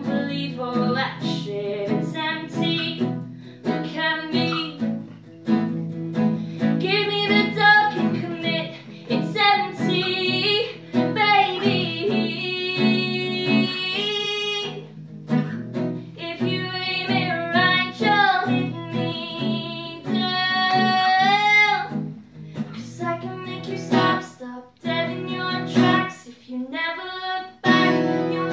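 A woman singing and playing acoustic guitar; her voice holds several long notes, some wavering.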